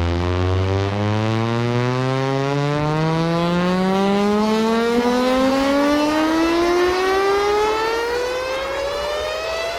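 Synthesized siren tone, rich in overtones, gliding slowly and steadily upward in pitch from deep to mid-range.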